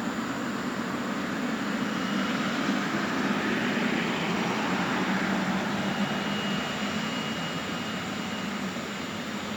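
Boeing 777 BBJ's twin jet engines running: a steady rushing noise with a faint high whine, growing louder about three seconds in and easing off again towards the end.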